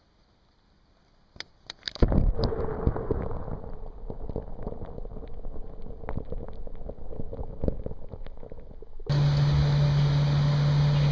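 Water sloshing and gurgling around a camera dipped into a lake, with a few splashy clicks as it goes in and muffled knocks while it is under. About nine seconds in the sound switches abruptly to a loud, steady noise with a low hum.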